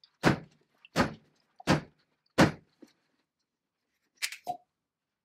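Wine bottle held in a shoe, banged heel-first against a wall four times, thuds about 0.7 s apart, driving the cork out. About four seconds in, the cork is pulled free by hand with a short squeak and pop.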